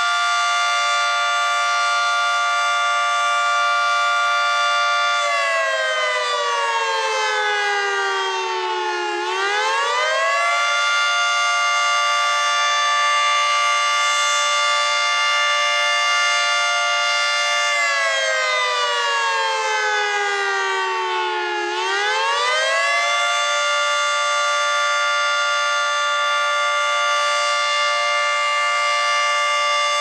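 Federal Signal 3T22 three-phase outdoor warning siren sounding its attack signal. A chord of several tones is held steady for about six seconds, slides down over about four seconds and sweeps quickly back up, twice, then starts to fall again at the very end.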